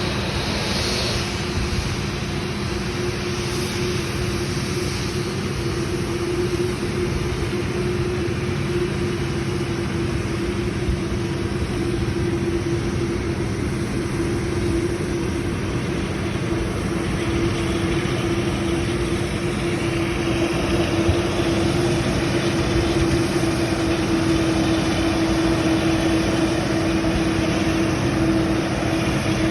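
Boeing 787-9 jet engines running steadily: a continuous drone with one steady tone over a rushing noise, growing a little louder in the second half.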